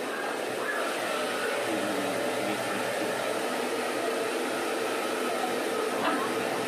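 Hair dryer switched on and blowing steadily.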